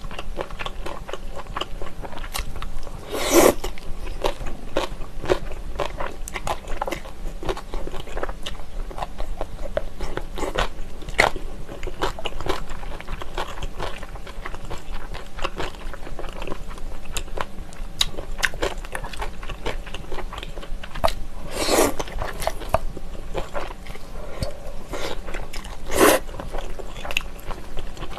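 Close-miked eating of jjolmyeon, chewy spicy Korean wheat noodles: wet chewing and mouth clicks throughout, with three louder noodle slurps, one early on and two in the last third.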